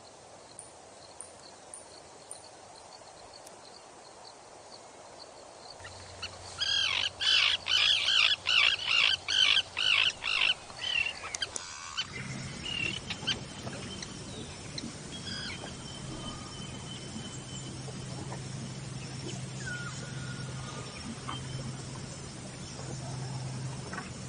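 A bird calling loudly in a quick run of about ten calls, roughly two a second, lasting about five seconds. About halfway through, a steady low hum sets in, with a few faint thin whistles over it.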